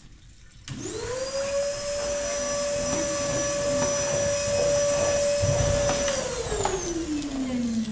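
A small electric motor switches on about a second in and spins up quickly to a steady high whine. It runs at constant speed for about five seconds, then cuts out and winds down with a falling pitch.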